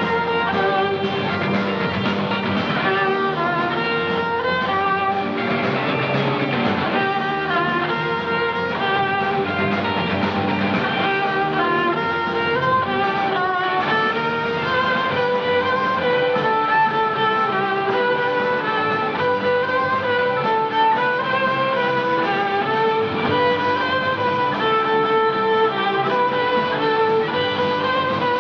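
Instrumental music led by a violin playing a melody of held notes, with guitar accompaniment.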